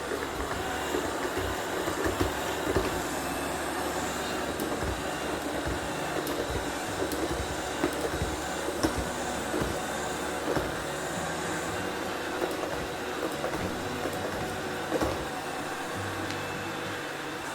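iMartine C900 robot vacuum cleaner running, a steady mechanical hum with irregular small clicks and knocks.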